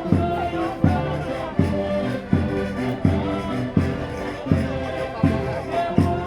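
Concertinas playing a folk dance tune, with a strong steady beat about every three-quarters of a second.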